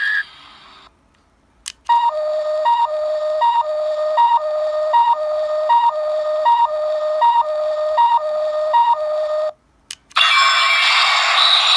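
DX Ultraman 55th Anniversary Hyper Key toy playing an electronic sound effect through its small speaker. A two-tone beep alternates high-low, about every 0.7 s for some seven seconds, after a click. A louder, fuller burst of toy sound follows near the end.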